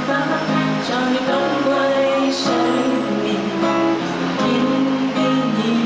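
Music led by an acoustic guitar, with chords strummed and held.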